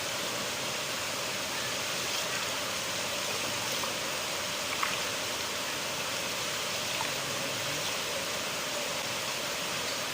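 River water flowing steadily in a continuous rushing hiss, with a brief splash about five seconds in.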